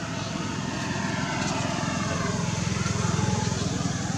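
An engine running steadily, swelling to its loudest about three seconds in and then easing off.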